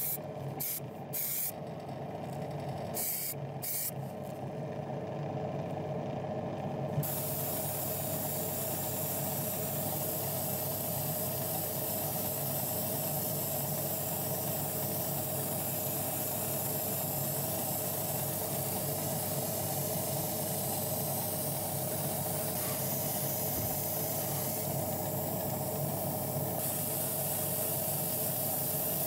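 Airbrush spraying paint onto a small diecast car body: a few short bursts of hiss in the first few seconds, then a steady continuous hiss from about seven seconds in, over a steady low hum.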